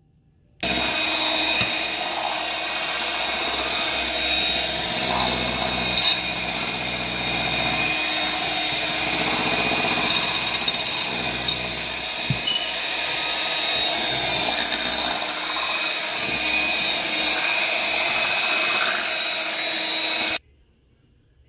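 Small electric kitchen mixing appliance running steadily at one speed, beating the mango cheesecake filling. It switches on about half a second in and cuts off about a second before the end.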